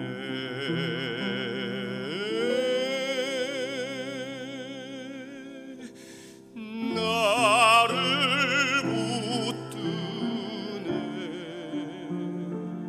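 A man singing a slow Korean hymn solo with wide vibrato over sustained instrumental accompaniment. He holds a long note, breaks off briefly about six seconds in, then comes back louder on higher notes.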